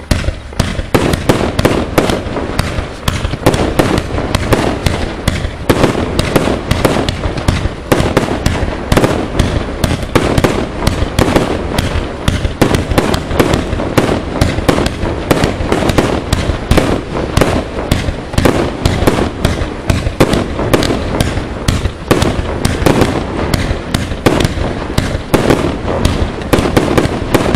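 Consumer firework cake (battery) firing a rapid, unbroken barrage of shots and bursting reports, many bangs a second overlapping one another.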